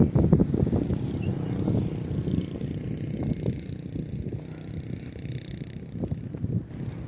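Road traffic: cars and other vehicles passing, a steady, uneven low rumble.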